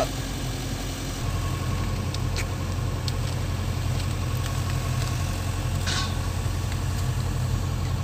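Diesel engine of a JCB backhoe loader running steadily while its backhoe arm swings a slung load. The engine gets a little louder about a second in, and a faint steady whine comes in with it.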